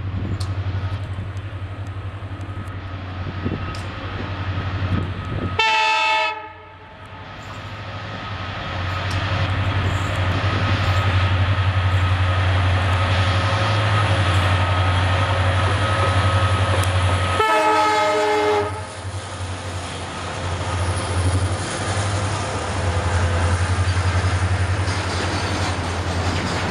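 Twin EMD two-stroke diesel locomotives passing under load with a steady low hum, followed by loaded petroleum tank wagons rolling by. A short horn blast sounds about six seconds in and another about twelve seconds later.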